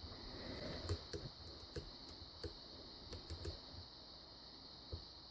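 Faint, irregular light metallic clicks of a 0.018-inch gem hook pick working the pin stacks of a Federal padlock held under tension during single-pin picking.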